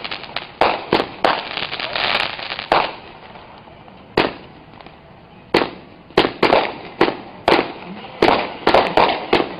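Brothers Americana 37-shot firework cake firing: sharp bangs of shots bursting one after another. A lull of about two seconds in the middle is broken by a single bang, then a quick run of bangs follows near the end.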